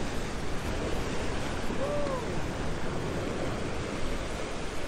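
Surf washing and breaking steadily against the rocks of a jetty, with wind buffeting the microphone.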